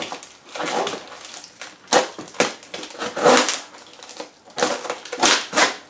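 Packing material and cardboard crunching and rustling in several short, irregular bursts as a shipping box is unpacked by hand.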